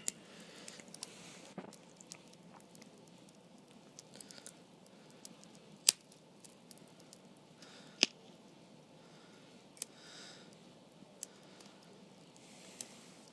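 Small campfire of straw and wood just catching, crackling quietly with scattered small snaps and two sharp pops, about six and eight seconds in.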